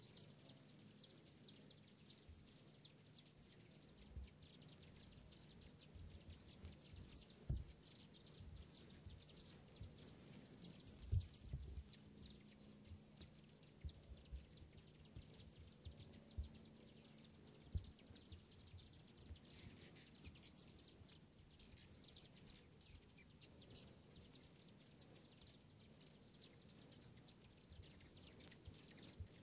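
Steady chorus of insects, a continuous high-pitched trill, with a few soft low thumps scattered through it.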